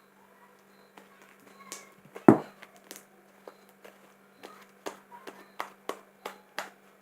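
Homemade slime being squeezed and stretched by hand, giving a string of sharp pops and clicks, one loud thump about two seconds in, then quicker pops of about one or two a second.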